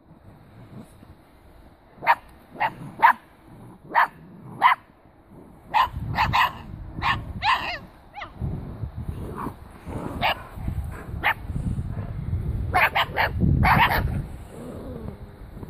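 Puppies barking in short, sharp yaps, a dozen or more spread through, with quick runs of several together about six seconds in and again near the end. A low rumble runs underneath from about six seconds in.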